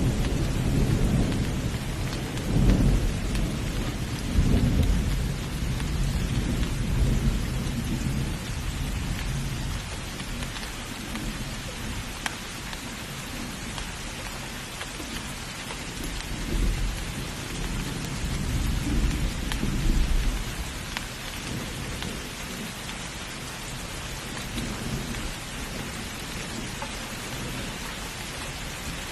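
Steady heavy rain hissing, with low rolling thunder rumbling beneath it. The thunder swells in the opening seconds and again a little past the middle.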